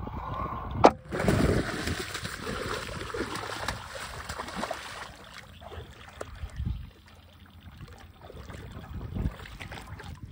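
A sharp smack about a second in, followed by a few seconds of splashing in shallow water, which then dies down to lighter sloshing.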